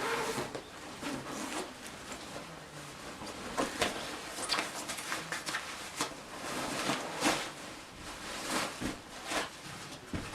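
Household objects being handled: irregular rustling with light clicks and knocks.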